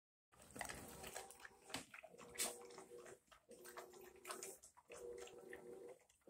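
Dog eating Diamond Naturals kibble mixed with apples and egg: quiet wet chewing and smacking with scattered crunches and clicks.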